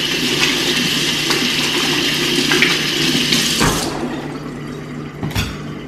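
Kitchen faucet running water as a cucumber is rinsed under it. The water stops about two-thirds of the way in, followed by a couple of light knocks.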